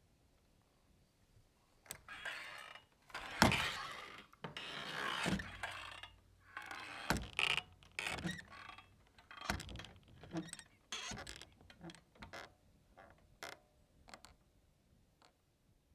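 Swinging saloon doors creaking and knocking as they swing, the loudest knock about three and a half seconds in, then smaller, sparser knocks dying away as the doors settle.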